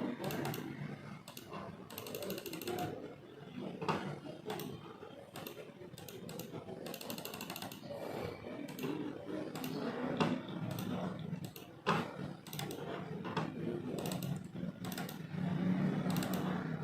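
Irregular clicks of a computer mouse and keyboard, with two short runs of quick clicks, over a low steady hum.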